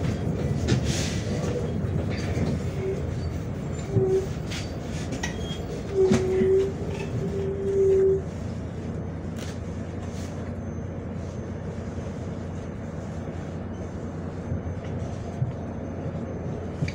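Cabin noise of a MAZ 105.465 city bus on the move: steady engine and road rumble with rattles and clicks from the body. A loud squeal sounds four times around the middle, two short and two longer.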